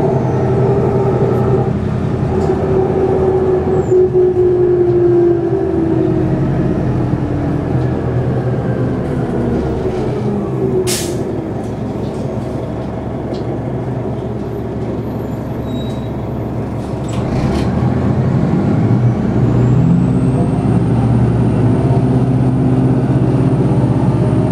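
New Flyer D40LF transit bus heard from inside the cabin. The engine drone falls in pitch as the bus slows and runs quieter for a few seconds, then rises again as it pulls away. There is a short air hiss from the brakes about eleven seconds in.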